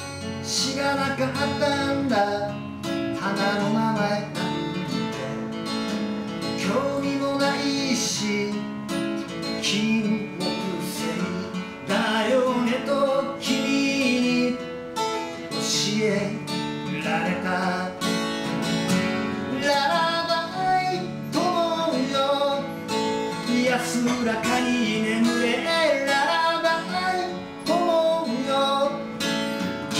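Acoustic guitar strummed steadily while a man sings along to it.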